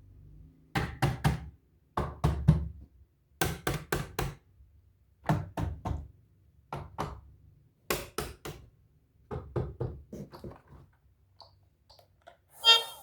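Knocking on a hard surface, in quick groups of two to four knocks repeated about every second and a half, with a small-room echo.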